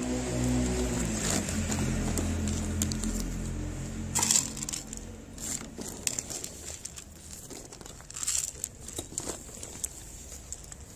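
A plastic bag of dry cat food crinkles, and kibble rattles onto a plate in short crackling bursts; the loudest comes about four seconds in. A low hum runs under the first few seconds.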